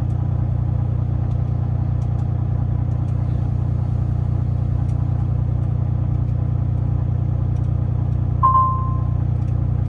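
Kenworth semi-truck's diesel engine idling steadily, heard from inside the cab. A short electronic beep sounds once, about eight seconds in.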